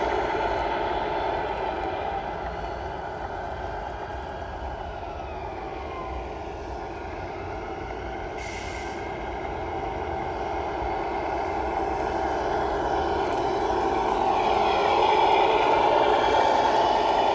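Radio-controlled Tamiya Scania R620 truck tractor driving, its electric drive giving a steady pitched mechanical running sound. It fades as the truck moves away and grows louder again as it comes back near the end. Its pitch glides down and later rises, with a brief hiss about eight seconds in.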